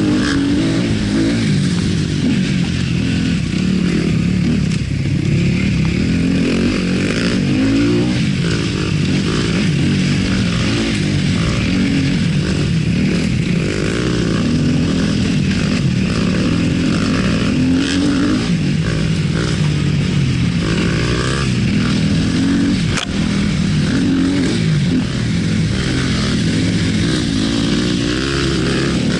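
Yamaha WR250F's 250 cc single-cylinder four-stroke engine with an Akrapovic exhaust being ridden off-road, its revs rising and falling constantly as the throttle opens and closes. There is one sharp knock about three-quarters of the way through.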